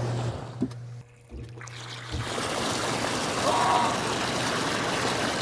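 Hot tub jets churning the water, a steady rushing wash with a low pump hum under it. About a second in the sound drops almost away, and the rushing water comes back at about two seconds.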